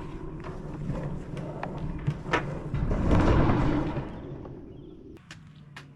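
Fence panels being handled: scattered knocks and clicks, with a louder rushing scrape about three seconds in that fades away after four seconds.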